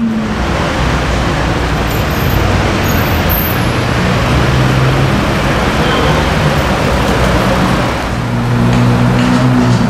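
Road traffic with an engine running close by: a dense, steady noise with a low drone that grows about four seconds in and again near the end.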